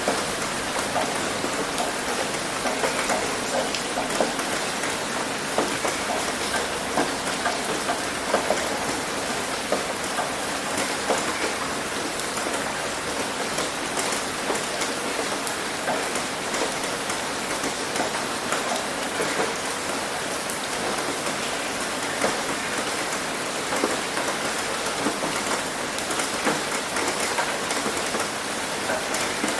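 Heavy rain hitting a roof: a steady dense hiss of rainfall with many small sharp drop impacts.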